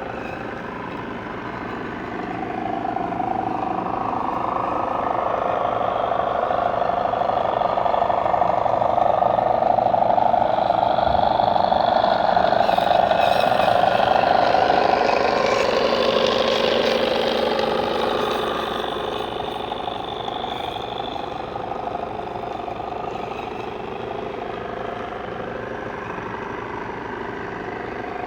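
An engine passes by, building to a peak and then fading away, its pitch dropping a little as it goes past.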